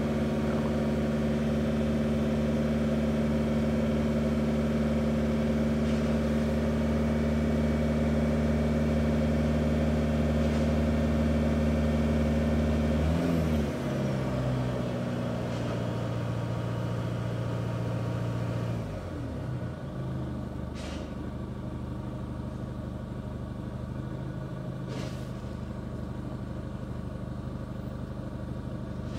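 Chevrolet Captiva diesel engine running steadily. About halfway through its revs fall, and a few seconds later the sound dips again and settles quieter.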